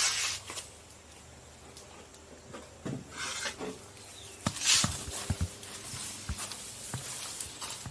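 Irregular light knocks, taps and rustles of someone moving about and handling things, with brief swishing rustles about three seconds in and a louder one near five seconds in, followed by a run of small knocks.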